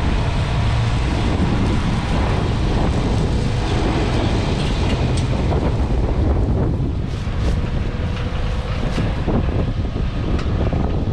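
A Fendt Ideal 8 combine harvester running steadily in the field, with wind buffeting the microphone over its low rumble.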